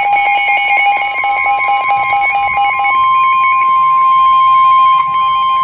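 Weather-alert warning tones. A fast-pulsing alarm tone sounds first, then weakens about 3 seconds in as a steady single tone near 1 kHz takes over. The steady tone is the NOAA Weather Radio warning alarm tone that comes before a broadcast warning.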